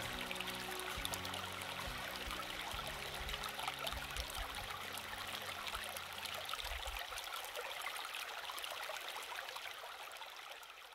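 Shallow rocky mountain stream trickling and burbling steadily over stones. Low steady tones die away about two-thirds of the way through, and the water sound fades out near the end.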